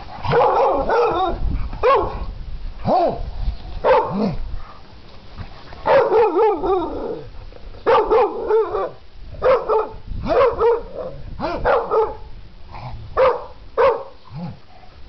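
Entlebucher Mountain Dog barking and yipping in play over a ball: about fifteen short barks in uneven runs of one to three.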